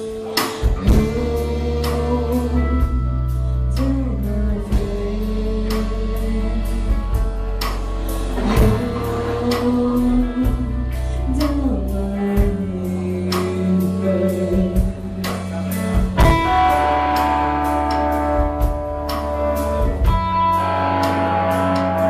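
A band playing an instrumental passage live: guitar and drum kit over a steady low bass line, with higher held melody notes coming in about three quarters of the way through.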